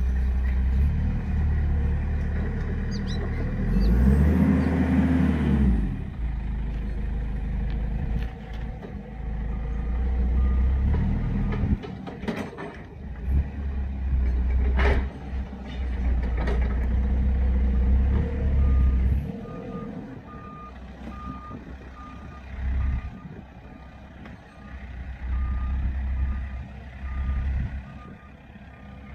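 Heavy vehicle engine working in surges, revving up and back down a few seconds in, with a sharp clank about halfway. In the last third a reversing alarm beeps steadily, a little over once a second.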